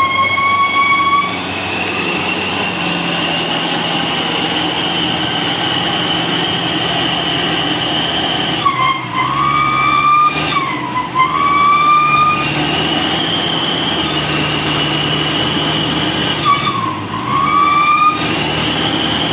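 Hino Dutro truck's diesel engine held at high revs under heavy load with a loud high whine, straining to climb a slippery slope. The pitch sags and recovers about nine seconds in, again around eleven seconds, and near seventeen seconds.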